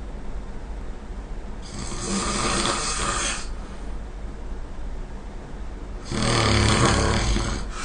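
Person snoring: a breathy snore about two seconds in, then a louder, deeper snore about six seconds in, each lasting under two seconds.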